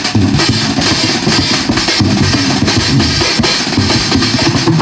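Live jazz band playing, with the drum kit loudest and quick drum and cymbal hits over a dense low end.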